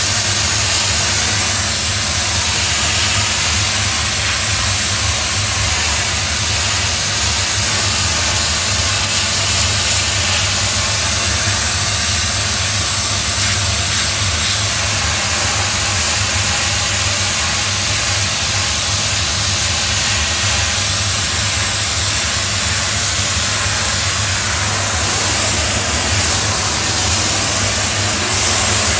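Doff superheated steam cleaner's lance jetting steam and scalding water onto patio paving slabs, making a steady, loud hiss. A steady low engine hum runs underneath.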